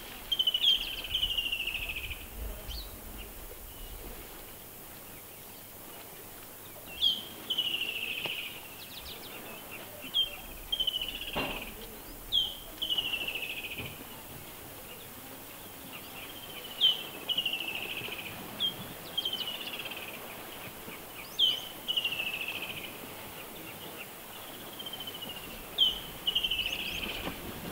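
A bird calling again and again, one phrase every four to five seconds: a sharp high note, then a falling, slightly buzzy trill about a second long.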